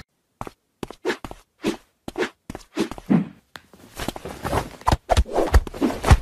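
Short soft rustles and pats, about two a second, as a hand and a cat's paws bat at each other on a bed cover, growing busier toward the end with a few low thumps.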